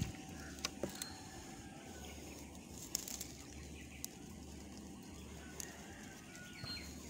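Faint outdoor handling noise: light rustles and a few small clicks as the camera shifts about, over a low wind rumble on the microphone that comes and goes.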